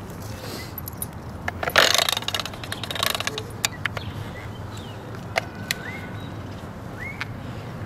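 A dog rooting through wet leaves and mud: rustling and scuffing, loudest about two seconds in, with a few sharp clicks, over a steady low background rumble.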